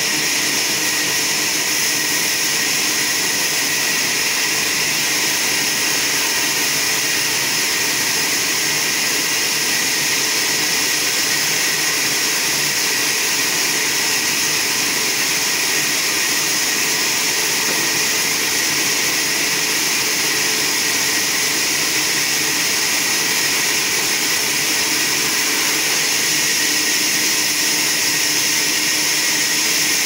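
Horizontal band sawmill running, its band blade cutting lengthwise through a log: a loud, steady, high-pitched noise with a faint motor hum beneath.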